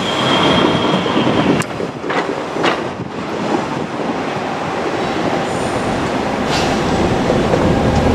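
KiHa 47 diesel railcars running on the rails with a steady rumble, and a high wheel squeal that stops about a second and a half in. There are a few sharp clacks as the wheels cross rail joints.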